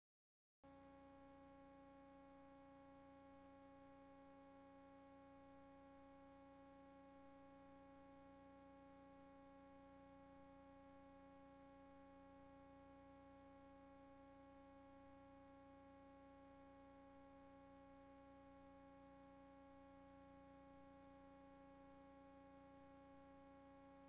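Faint, steady electrical hum on an old videotape's audio track: one unchanging tone with evenly spaced overtones over a low hum floor, coming in about half a second in.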